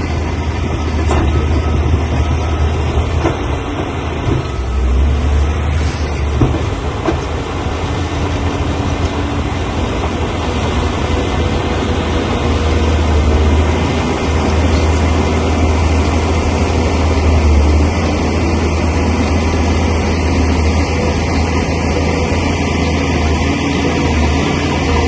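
Crawler bulldozer working: its heavy diesel engine runs with a steady low drone that swells and eases, over the clank and grind of its steel tracks, with a few sharp knocks.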